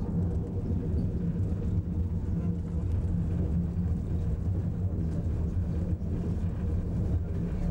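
Funicular car running down its track: a steady low hum that goes on without a break.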